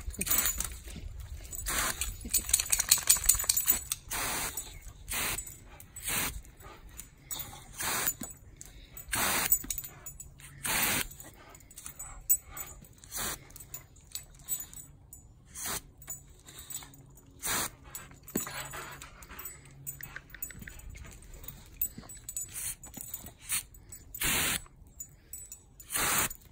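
Boxer dog huffing and snorting in short breathy bursts every second or two. About two to four seconds in, a rapid metallic jingling joins in as she jumps about.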